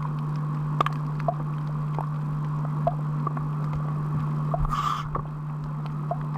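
Underwater reef ambience: a steady low hum with scattered sharp clicks and short chirps, and a brief hissing burst a little before five seconds in.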